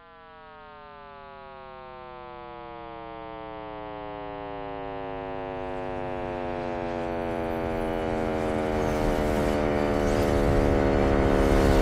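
Electronic soundtrack swell: a buzzy tone rich in overtones slides slowly downward in pitch while growing steadily louder, with a rushing hiss building up beneath it in the second half.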